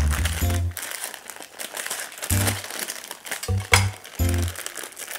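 Plastic wrapper of a Shin Ramyun instant-noodle packet crinkling as it is handled and torn open, with one sharp crack a little past halfway. Background music plays along with it.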